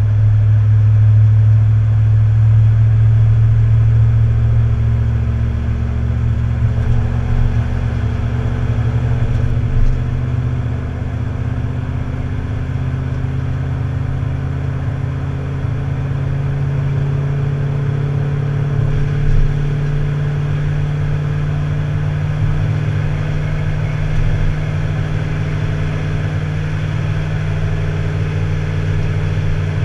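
Engine of the tow vehicle running steadily under way with a strong low hum, its note rising slowly through the middle of the stretch.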